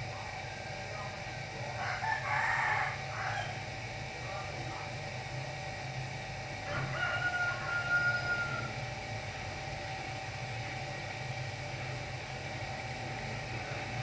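A rooster crowing twice, about two seconds in and again around the middle, the second crow ending in a long held note, over a steady low hum.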